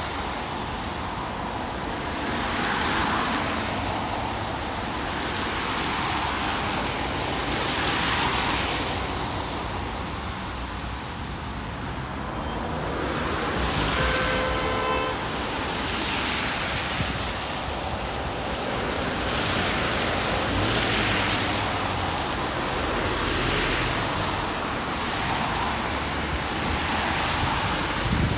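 Road traffic passing: cars and buses go by one after another, their tyre and engine noise swelling and fading every few seconds. A short pitched tone sounds about halfway through.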